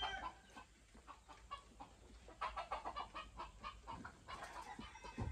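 Game chickens clucking faintly, with a quick run of short clucks about two and a half seconds in.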